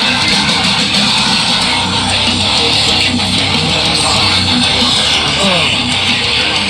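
Heavy metal song playing loud and dense, with distorted electric guitars and bass over drums, with no vocals.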